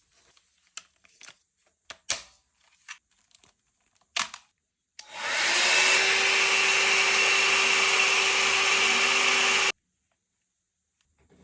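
A few light clicks and knocks, then a Babyliss hot air brush switched on about five seconds in: its fan blows steadily with a steady hum for almost five seconds and cuts off suddenly when switched off.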